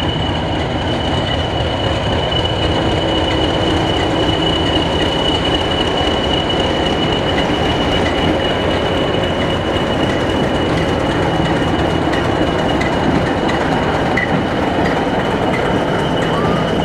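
Two diesel locomotives running past together: a Class 20 with its English Electric 8SVT engine leading a Class 27 with its Sulzer engine, engines running steadily. A steady high whine sits over the engine noise throughout.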